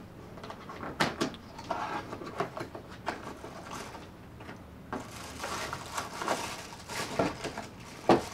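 A cardboard box being opened by hand: scattered knocks and scrapes of the box and its flaps, then from about five seconds in a run of paper and plastic packaging rustling and crinkling as the reel inside is handled.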